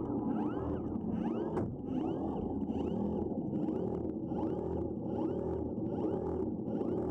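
Robotic fish drone's tail-drive motor running underwater, a whine that rises and falls with each tail stroke, roughly twice a second, over a steady low hum.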